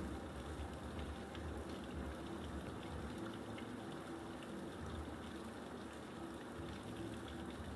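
Steady rain falling, an even hiss with faint scattered ticks of individual drops.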